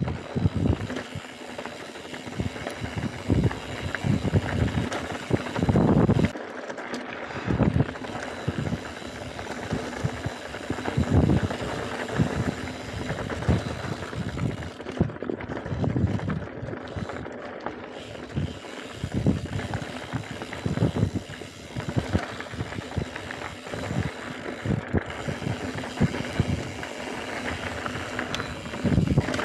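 Mountain bike riding fast down a dirt and rock forest trail: tyres rolling over stones and roots with irregular knocks and rattles from the bike at each bump, over steady wind rush on the microphone.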